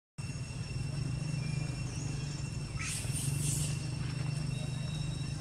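Outdoor background with a steady low hum and a short, raspy, high-pitched animal call about three seconds in.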